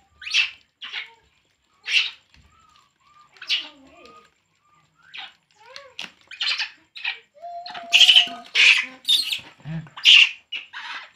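Baby macaque crying with short, high-pitched squeals again and again, sparse at first and then quicker and louder in the second half.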